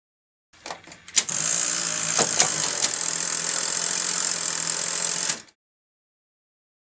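Old video-equipment sound effect: a few sharp mechanical clicks, then a steady hissing whir with a low hum underneath that cuts off suddenly.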